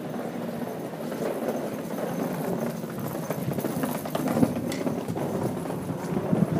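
Footsteps on brick paving, with a cloth scarf scraping and rustling as it is dragged along the ground: a dense run of small knocks and scuffs, with a few sharper clicks near the end.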